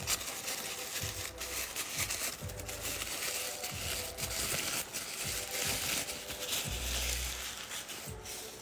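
A packaging wrapper being pulled off and crumpled by hand, giving a continuous crackly crinkling with many small snaps.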